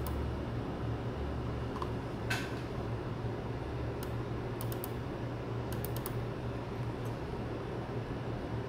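Steady low hum of the room, with a handful of sharp clicks scattered through it, from a computer mouse being clicked to switch camera views on the security recorder.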